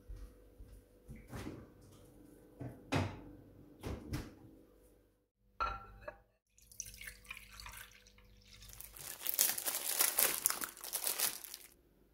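A few light knocks of ceramic tableware being set down. Then liquid is poured into a ceramic bowl, a rushing, splashing pour that is loudest in the last few seconds before it stops.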